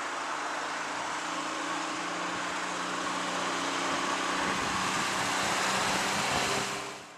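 Aircraft engines running across the airfield: a steady rush with a low droning hum underneath, swelling a little before fading out quickly near the end.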